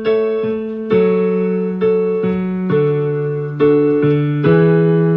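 Keyboard music: piano-like chords struck about once a second, each one ringing out and fading before the next.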